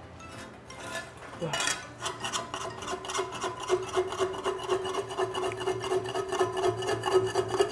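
Metal spatula scraping fried rice off the bottom of a giant iron griddle pan in rapid back-and-forth strokes, with a steady metallic ring. It is loosening the crust of rice stuck to the pan (nureungji). The scraping starts about two seconds in.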